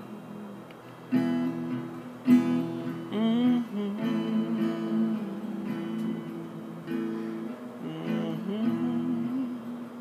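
Instrumental break in a song: acoustic guitar strumming chords, with a melody line over it that bends in pitch a few times.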